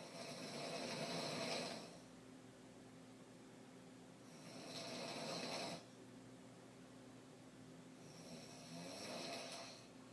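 A woman snoring hard while asleep on her back: three long snores about four seconds apart, each swelling and then cutting off.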